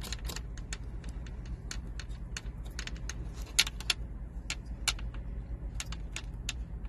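Irregular small metallic clicks and rattles as a nut is spun by hand onto a threaded terminal stud and the wire leads are handled, with a few sharper clicks around the middle. A steady low hum runs underneath.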